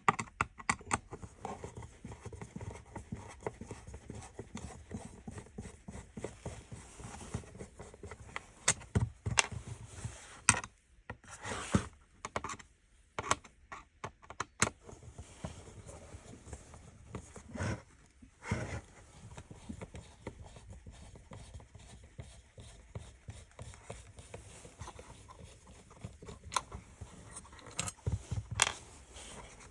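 Irregular small clicks, taps and scrapes of a screwdriver and hard plastic parts as screws are worked out of a car light control switch unit, with a couple of longer scraping rustles.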